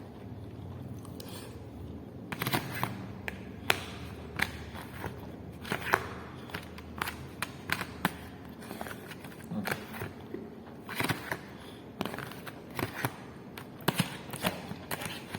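Eating sounds: irregular small clicks and taps of handling food and a takeaway container, sometimes several in quick succession, over a low steady hum.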